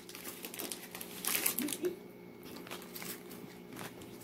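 Plastic snack packaging crinkling as it is handled, in irregular short rustles, the loudest about a second and a half in.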